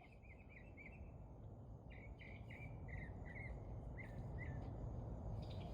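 A small bird chirping: a run of short, quick chirps, a few in the first second and more from about two seconds in, over a faint low rumble that slowly grows louder.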